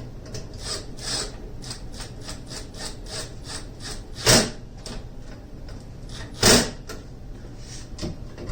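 Cordless drill on its drill setting driving screws: a rhythmic rasping about three or four strokes a second, with two short, much louder bursts of the drill around the middle.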